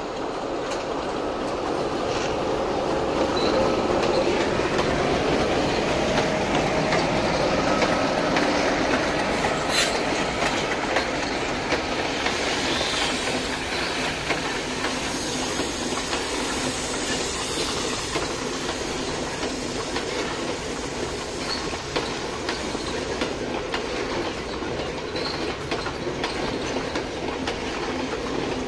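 Sri Lanka Railways M4 class diesel locomotive rolling past, then its passenger carriages running by with wheels clicking over the rail joints. The sound swells over the first few seconds as the locomotive draws level, then holds as a steady rumble.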